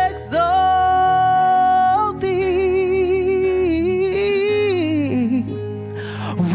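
Worship music: a solo voice holds long wordless notes over sustained keyboard chords, wavering slightly and gliding down about five seconds in.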